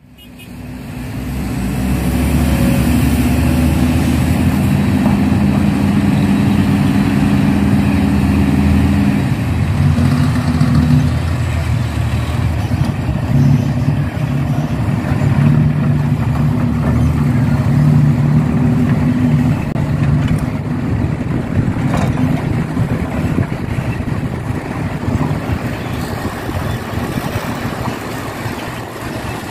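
Heavy diesel engines of an excavator and dump trucks running, fading in at the start; the engine note steps lower about a third of the way in and holds there, with a single sharp click about two-thirds of the way through.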